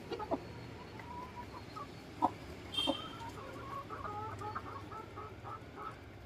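Chickens clucking softly, with a run of short calls in the middle and a few sharp knocks between them.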